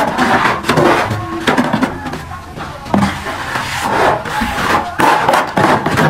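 Steel trowel scraping and smoothing wet cement render over a brick wall in repeated strokes, about two a second.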